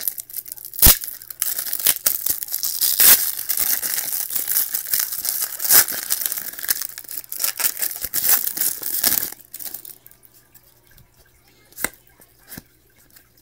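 Trading card pack wrappers being torn open and crinkled, with sharp snaps of the wrapper, for about nine and a half seconds. Then it goes much quieter, with a couple of faint clicks near the end.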